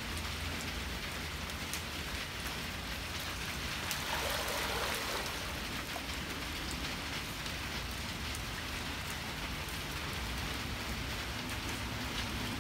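Steady heavy rain falling, with scattered drip ticks and a brief louder rush of noise about four seconds in.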